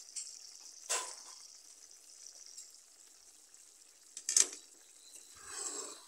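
A wok of curry simmering and sizzling with a steady soft hiss. A spatula knocks against the wok about four seconds in and starts scraping and stirring near the end.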